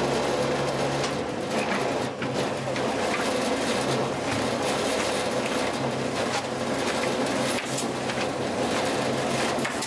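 A small engine running steadily, with a few short knocks and scrapes over it.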